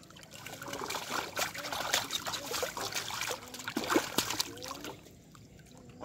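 Hands splashing and sloshing in shallow muddy water while grabbing a fish, with dribbling and trickling water. The splashing dies down about five seconds in.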